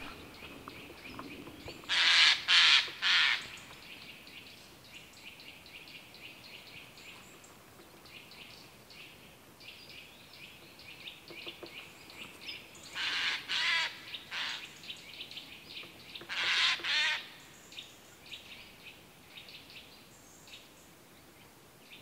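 Eurasian jays giving harsh screeching calls: three in quick succession about two seconds in, a cluster near the middle and two more a few seconds later. Faint rapid chirping of small birds carries on underneath.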